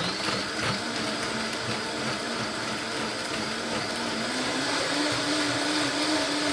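Vitamix blender running, blending chunks of peeled grapefruit with a little water. The motor tone is steady, then steps up in pitch about four to five seconds in as the speed dial is turned higher.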